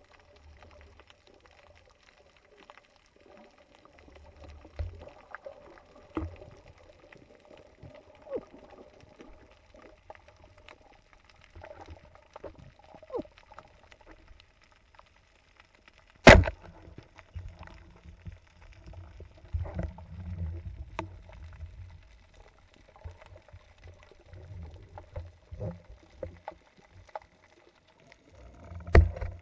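Underwater sound through a camera housing during spearfishing: a faint steady hum, scattered small clicks and knocks, and low rumbles from movement in the water. One sharp, loud crack about halfway through is the loudest event, and another sharp knock comes near the end.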